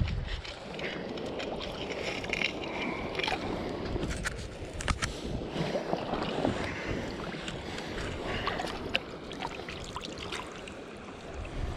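Shallow river water splashing and sloshing in many short irregular bursts over a steady rush of flowing water, as a tired steelhead is beached in the shallows.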